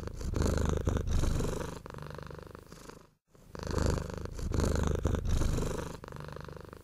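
A domestic cat purring, heard as two matching runs with a short break about three seconds in; each run goes from a louder breath to a softer one.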